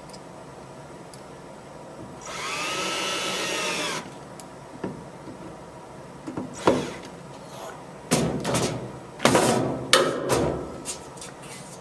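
Cordless drill/driver running for about two seconds as it drives a screw into a wall anchor, its motor whine rising then falling in pitch. Later come several sharp clicks and knocks of handling and tool contact.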